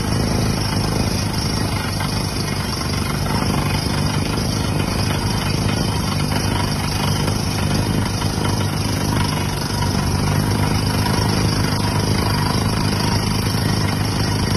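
Truck-mounted water well drilling rig running: a steady engine drone with an even high hiss over it.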